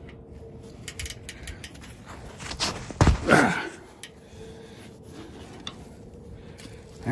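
Ratcheting wrench clicking on the oil drain plug of a mini excavator's 13 hp Briggs & Stratton engine. About three seconds in comes a loud rush as the plug comes free and the oil gushes out.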